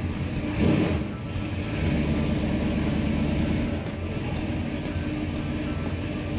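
1976 Ford Torino's engine running at a steady idle while it warms up, growing a little louder for a couple of seconds in the middle.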